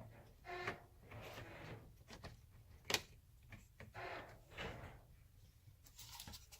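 Handling noise from screwdriver bits and a foam-lined tray in a tool chest: scattered light clicks and soft rustling, with one sharper knock about three seconds in.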